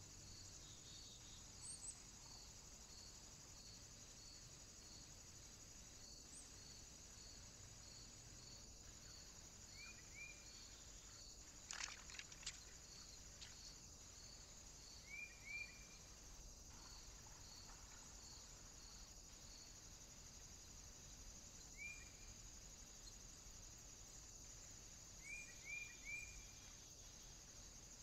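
Faint outdoor ambience dominated by a steady high insect trill pulsing about twice a second. A few short high chirps come in twos and threes, and a brief cluster of clicks falls about twelve seconds in.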